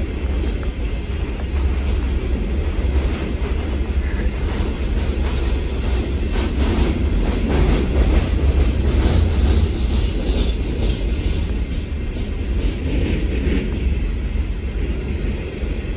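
Coal train's freight cars rolling past: a steady low rumble of steel wheels on rail, with a run of clicks as the wheels cross rail joints in the middle.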